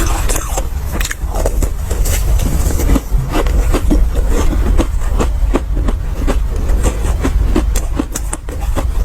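Ice coated in matcha powder being chewed and crunched close to the microphone: rapid, irregular crunches and cracks over a heavy low rumble.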